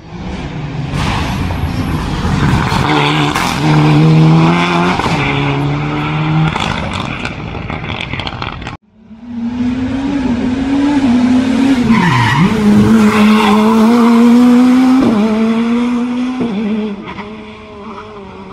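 Two rally cars in turn, each engine revving hard as it passes through a hairpin bend, the pitch dropping and climbing again with lifts and gear changes. The first pass cuts off abruptly about nine seconds in and the second starts straight away.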